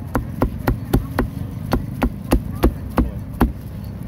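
Cleaver chopping crispy roast pork on a large iron pan: a steady series of sharp chops, about three a second, the blade striking through the meat onto the metal, over a low steady background hum.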